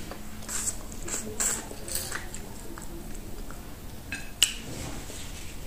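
Close-up mukbang eating sounds: wet chewing and lip smacking, with scattered short smacks and one sharp click near the end.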